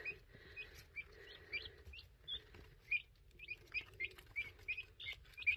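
Young guinea fowl keets peeping: short, high, rising chirps from several birds, a few a second.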